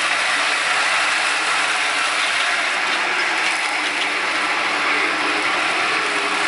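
Mitsubishi MT16D compact tractor's diesel engine running under load while its PTO drives a Komondor SFK-105 two-drum mower cutting grass: a steady, even mechanical noise of engine, spinning drums and driveline.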